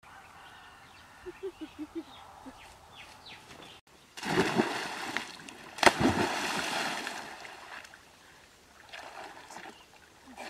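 A body plunging into a muddy pond: loud splashing water starts about four seconds in, with a sharp slap on the water about six seconds in, then sloshing as boys wade chest-deep. A smaller splash follows near the end.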